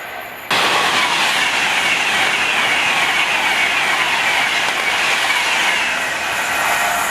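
Class 390 Pendolino electric train passing at speed: a sudden loud rush of wheels on rail and air about half a second in, carrying a whine that slowly falls in pitch and easing slightly near the end.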